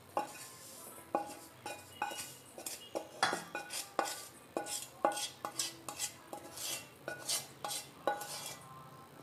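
Wooden spatula scraping and knocking against a non-stick pan as flour is scraped out into a steel bowl: irregular light knocks and scrapes, two or three a second.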